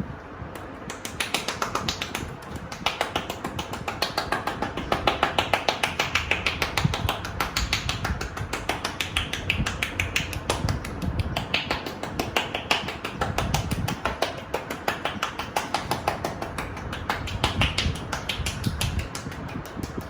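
Percussive massage strokes: hands striking in quick rhythmic succession, the loose fingers clicking together on each blow, several clicks a second with soft thuds underneath, starting about a second in.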